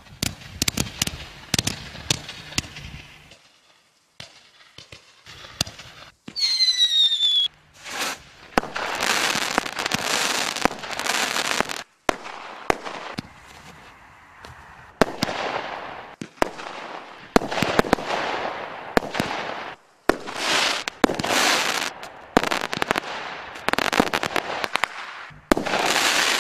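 Ardi Portable 180 Série II consumer fireworks cake, a pre-linked set of fireworks lit once, going off in a long run of shots and bursts of sparks, one after another with brief gaps. About six seconds in, a whistle sounds for about a second, falling slightly in pitch.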